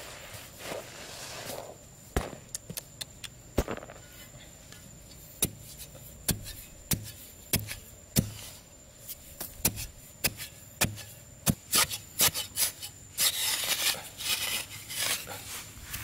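A digging tool chopping into dry, sandy earth with a run of sharp knocks, one or two a second, as a small hole is dug. Near the end, loose soil is scraped and scooped out of the hole by hand.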